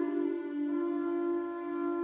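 A long, steady low note played on an end-blown bamboo flute, with a second, slightly higher tone sounding alongside it that stops about half a second in.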